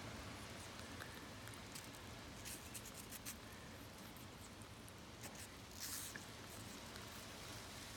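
Faint soft clicks and wet nibbling of a rainbow lorikeet's beak biting into a slice of apple, a few scattered ticks, the clearest about six seconds in.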